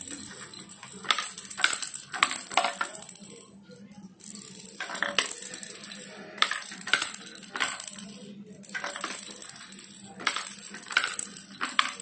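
Small plastic balls rolling round the spiral ramps of a plastic ball-drop tower toy, rattling and clicking against the tracks as they drop from tier to tier and out at the bottom. The clatter comes in several runs with short pauses between, as fresh balls are dropped in.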